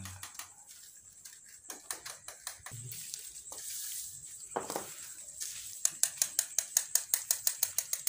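Soldering iron tips dabbed onto layered plastic sheeting, spot-melting the coloured plastic pieces onto the kite: scattered light ticks and plastic crackle, turning about six seconds in into a quick run of sharp taps, about four a second.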